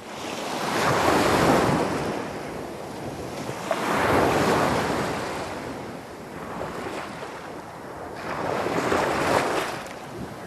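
Ocean waves washing onto a shore, swelling and falling back three times.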